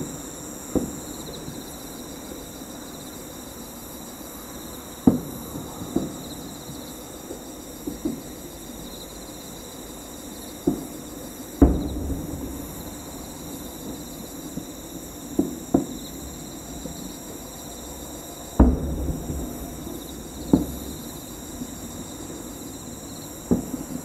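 Distant aerial fireworks shells bursting about 3 km away: about a dozen booms at irregular intervals, with the two loudest at about halfway through and about three-quarters through.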